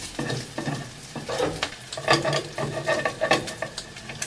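Food frying in a pan on a gas hob, with repeated short clicks and scrapes of tongs working in the pan.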